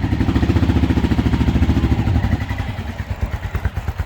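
Single-cylinder engine of a Honda XR650L dual-sport motorcycle running at raised revs, then easing back about two and a half seconds in to a slow idle with distinct separate firing pulses.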